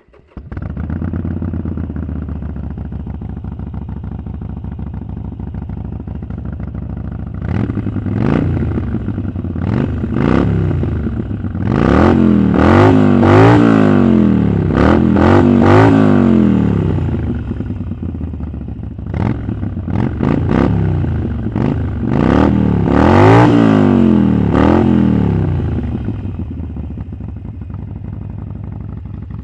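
Harley-Davidson Iron 883's air-cooled V-twin through a Vance & Hines exhaust, idling and then revved in a series of throttle blips, pitch rising and falling with each. There are two bursts of revving, each settling back to idle.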